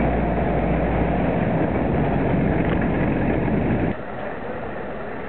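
Willys MB jeep's four-cylinder engine running as the jeep rolls along railway track on flanged rail wheels, heard close from on board. About four seconds in the sound drops abruptly to a quieter, more distant run.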